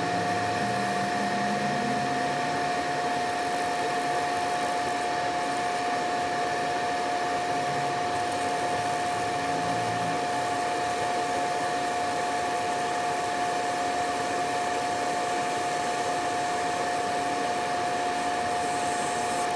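Laser back-glass removal machine running while it works on an iPhone 11's back glass: a steady fan-like rush with a constant high whine over it.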